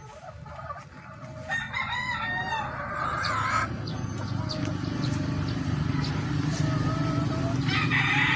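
Gamefowl roosters crowing: one long crow starts about a second and a half in, and another begins near the end, with short calls from other fowl between. A steady low hum runs underneath from about three seconds in.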